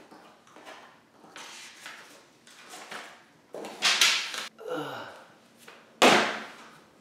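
A cardboard camera box being opened by hand: the flaps and inner packaging rustle and scrape in several short bursts. About six seconds in there is a sudden, louder thump.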